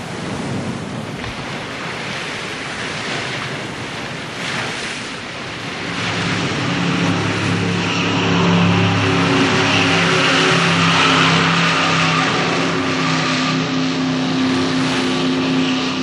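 A recorded sound effect: a rushing noise that swells, joined about six seconds in by a steady droning hum of several low tones, like a running vehicle engine.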